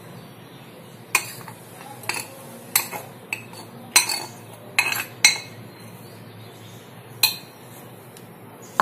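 A metal spoon clinking and scraping against glass mixing bowls while gram flour is scooped from one bowl into another, about eight sharp clinks at uneven intervals.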